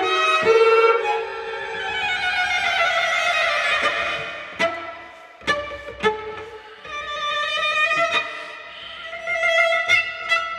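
Solo cello bowed in a contemporary piece, with live electronics. Sustained notes give way to a falling sweep of pitch about two to four seconds in, then sharp accented bow strokes, then held higher notes near the end.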